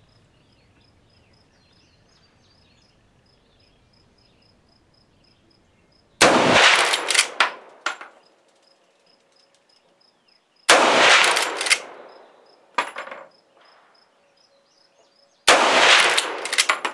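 Three shots from a Marlin 336 lever-action rifle in .30-30 Winchester, about four and a half seconds apart, each ringing out for about a second. About a second after each shot comes a short metallic clacking as the lever is worked to eject the case and chamber the next round.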